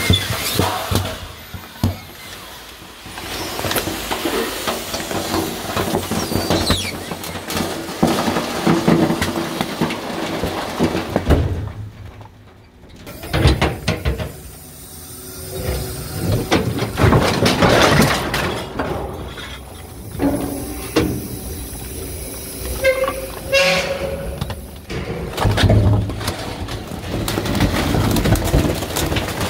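Garbage truck compactor crushing bags of rubbish, with loud whistling and popping noises as the bags are squeezed and burst. There is a short quieter lull about twelve seconds in.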